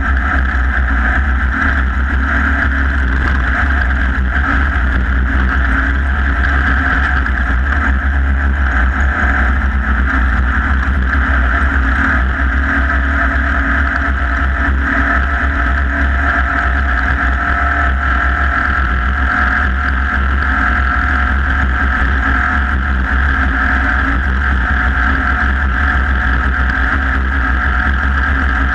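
Off-road race vehicle's engine running hard at racing speed, heard on board. It is a loud, steady, unbroken drone with a heavy low rumble.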